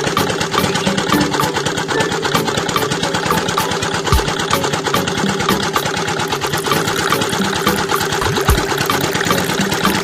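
Small motor of a miniature model machine running steadily, with a fast, even ticking and a low thud about four seconds in and again after eight seconds.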